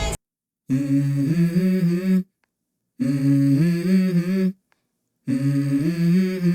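Humming or wordless singing in three short melodic phrases, each broken off by dead silence.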